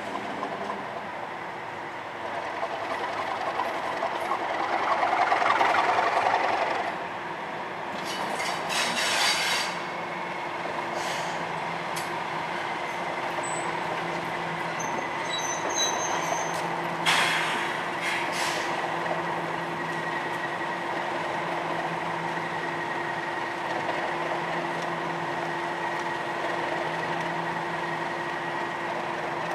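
Class 37 diesel-electric locomotive moving slowly, its English Electric V12 engine running with a steady note. It gets louder for a few seconds about four seconds in, with brief metallic squeals and clanks from the wheels on the curving track around the middle.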